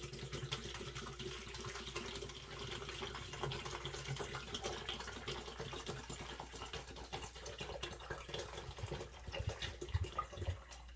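Vinegar pouring in a steady stream from a plastic bottle into a plastic mixing container, splashing as the container fills. Near the end, as the bottle is tipped nearly upside down and empties, the flow turns uneven and glugs.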